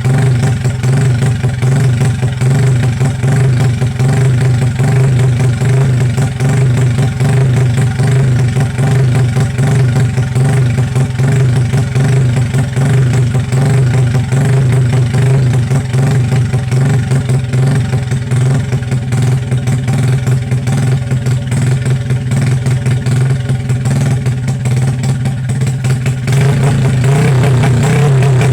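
Truck engine running steadily through its exhaust, a loud low drone. About 26 seconds in, the sound shifts and gets slightly louder.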